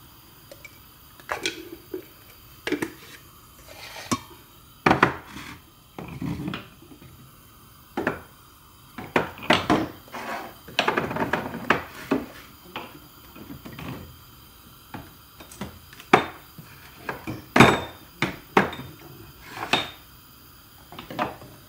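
Kitchen handling sounds at a stainless steel mixing bowl: irregular taps, clinks and knocks of a utensil and containers. A busier stretch of clattering comes around ten to twelve seconds in, and the sharpest knock comes about three-quarters of the way through.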